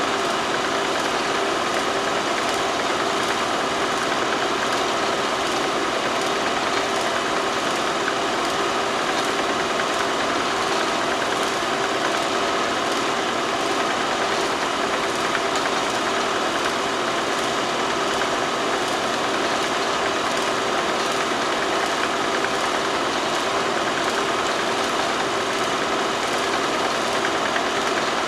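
Steady, unchanging mechanical hum with hiss: a fixed drone holding a few constant tones, with no change in pitch or level. It does not follow the pictures; the film itself has no sound.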